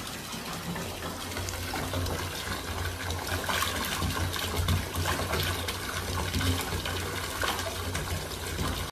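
A bath tap runs, with water pouring and splashing steadily into a part-filled bathtub.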